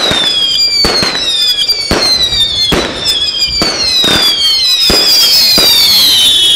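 Royal Fireworks 'Screaming Salute' firework cake firing a rapid string of whistling shots. Each whistle falls in pitch over about a second and overlaps the next, with sharp bangs every half second to second.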